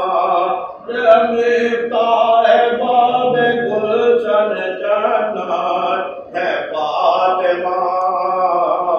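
A man's voice chanting a melodic religious recitation in long, held phrases, with short breaks between phrases about a second in and just past six seconds.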